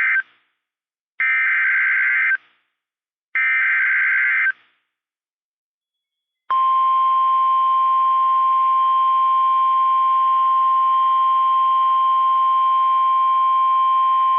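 NOAA Weather Radio emergency alert signal: three short screeching digital data bursts (the SAME header that encodes the warning), a pause, then the steady 1050 Hz warning alarm tone that starts about 6.5 seconds in and holds. The tone marks an urgent warning, here a severe thunderstorm warning, and switches on alert-equipped weather radios.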